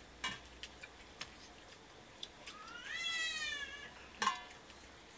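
A single high, drawn-out cry lasting about a second, rising then falling in pitch, amid scattered small clicks; a sharp knock, the loudest sound, comes soon after.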